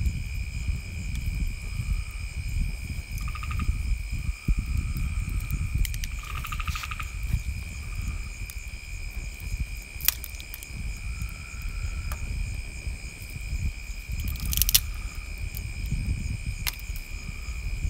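Insects chirring in a steady, unbroken high tone, with short higher calls coming and going at irregular times. A low rumble runs underneath, and a few sharp clicks stand out.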